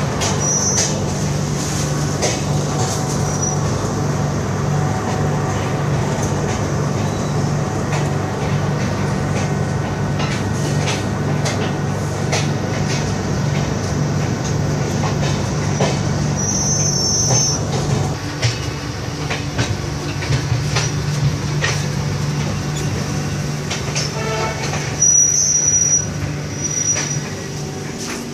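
Inside a moving air-conditioned passenger train coach: a steady low running hum, with wheels clicking over rail joints and points. Brief high wheel squeals come a few times, and the run gets slightly quieter about two-thirds of the way through.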